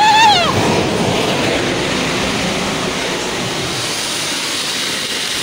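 A short high yell at the start, then the steady rushing rumble of a landslide of mud and water sliding down the hillside.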